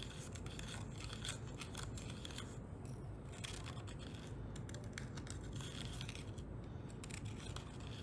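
Small plastic spoon stirring and scraping in a compartment of a plastic candy-kit tray, dissolving powder in water: a faint run of quick irregular ticks and scratches.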